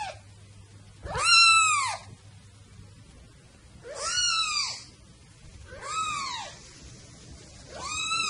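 Very young kitten meowing: four high calls, each rising and then falling in pitch, about two seconds apart.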